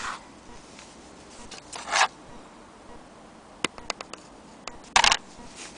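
Cloth rustling as a sewn fabric piece is handled: a short swish at the start, another about two seconds in and the loudest about five seconds in, with a few sharp clicks between them.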